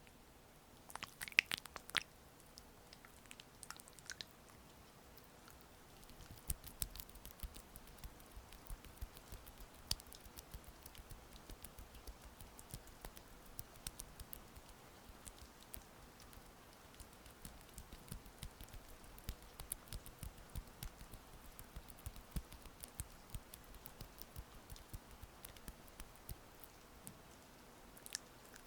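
Oiled hands massaging a face, giving soft wet, sticky clicks and squishes, with a louder cluster of clicks in the first two seconds and a steady scatter of small clicks afterwards. Faint rain patter lies underneath.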